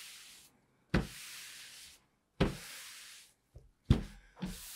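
A cloth wiped in long strokes across a pinball machine's playfield glass: three strokes about a second and a half apart, each a soft thump as the cloth lands, then a hiss as it slides over the glass.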